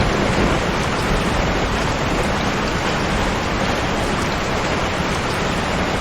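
Steady heavy rain: an even, unbroken hiss of falling water.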